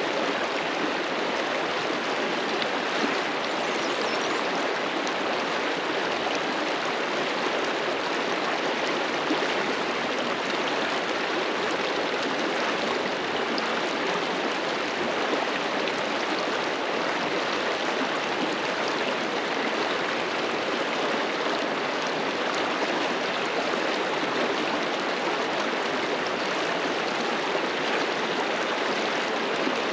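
A fast-flowing mountain river rushing over rocks, a steady full rush of water with no letup.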